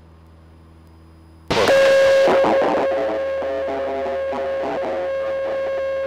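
A light aircraft engine drones steadily, heard through the cabin intercom. About a second and a half in, loud guitar music cuts in suddenly, with plucked notes over one long held tone, and drowns the drone.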